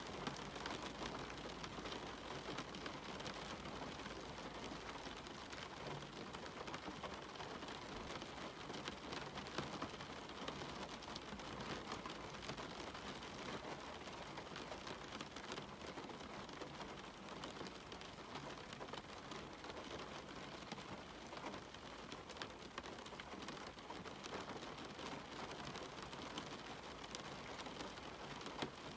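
Steady rain falling: an even hiss dotted with the patter of individual drops.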